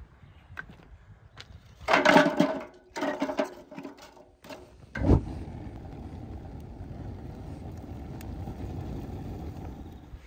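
Split firewood logs clattering into a steel fire stove, twice with a ringing metallic clatter, then a sharp knock about five seconds in. After that a wood fire burns steadily in the stove with a low rushing sound.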